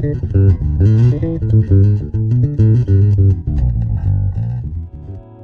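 Electric bass guitar playing a quick line of plucked notes, getting quieter toward the end.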